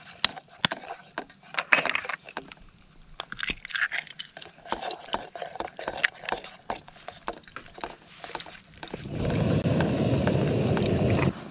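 Eggs tapped with a metal spoon and cracked open over a metal camping pot, then beaten into the omelette mix with a spoon: a run of sharp clicks, taps and cracks. Near the end a louder rough rushing noise takes over for about two seconds and cuts off suddenly.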